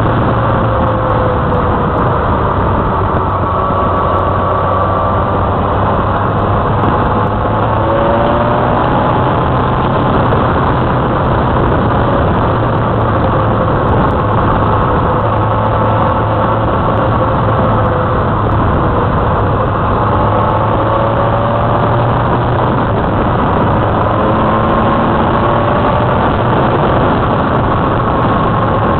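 Motorcycle engine running at road speed, its pitch drifting gently up and down with the throttle, under a steady rush of wind and road noise.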